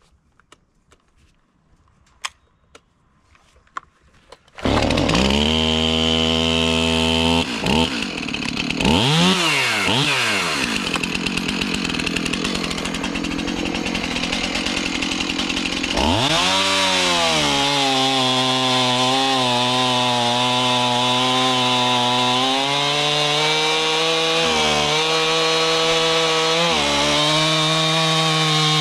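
STIHL MS 291 two-stroke chainsaw starting up after a few faint clicks, then revved up and down a couple of times. From about halfway on it runs at full throttle, cutting through a log, its pitch dipping briefly twice under load near the end.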